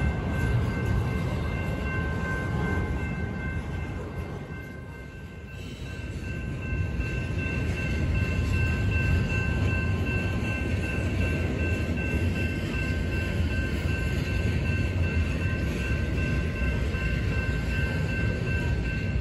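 Double-stack intermodal container well cars rolling past at reduced speed, a steady low rumble of wheels on rail that dips briefly about five seconds in. Several steady high ringing tones run over the rumble.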